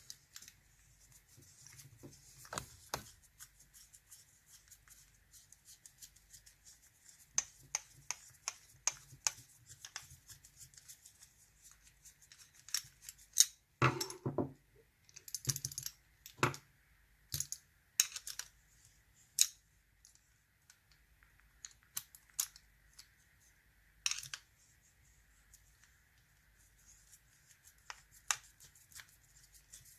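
Small metal clicks, ticks and scrapes from an American A1100 series padlock and small tools being handled as the lock is taken apart by hand, with a cluster of louder clacks around the middle.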